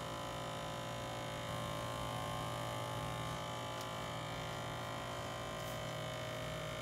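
Steady electrical hum made of several fixed tones, with a couple of faint clicks partway through.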